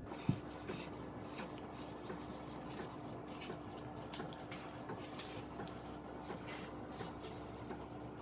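Pen writing on a sheet of paper on a tabletop: faint scratching strokes, with a single knock about a third of a second in, over a faint steady hum.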